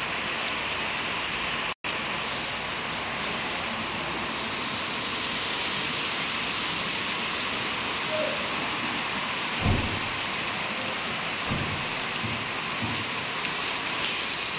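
A steady, even hiss like heavy rain, with a few dull knocks about ten and eleven seconds in.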